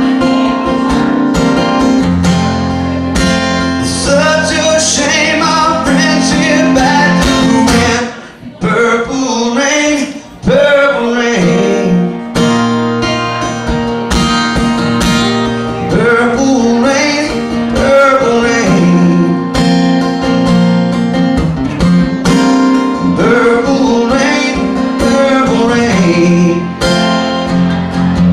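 Live country music: a singer with guitar accompaniment, over a steady bass line, with a brief drop in the playing about eight seconds in.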